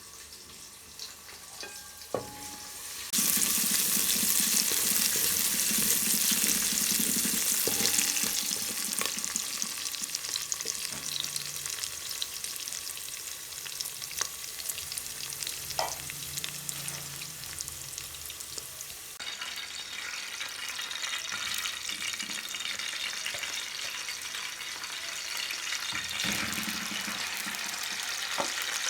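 Food frying in hot oil in a cooking pan. A loud sizzle starts suddenly about three seconds in as food goes into the pan, is strongest for the next few seconds, then settles to a steadier, quieter sizzle that swells again near the end.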